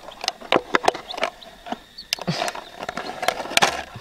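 A run of irregular sharp clicks and knocks, with short scraping noises about two and a half and three and a half seconds in.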